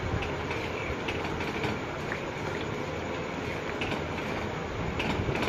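Flat metal spatula stirring thick chana dal in a steel pan: a wet scraping with a few light knocks of metal on the pan, over a steady hiss.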